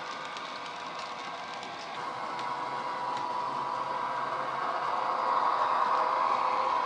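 Scale-model SD70ACe diesel locomotive's engine sound from an ESU LokSound DCC decoder, played through the model's small speaker: a steady diesel drone that grows louder from about two seconds in as the locomotive approaches, with faint clicks of wheels on the track early on.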